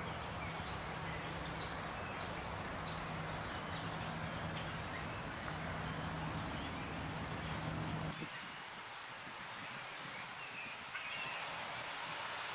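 Outdoor park ambience: a steady background hiss with scattered short bird chirps. A faint high whine and a low rumble underneath both cut out about eight seconds in.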